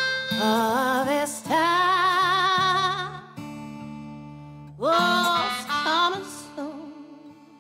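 Background music: a singer holding long, wavering notes in two phrases over a plucked-string accompaniment, fading out near the end.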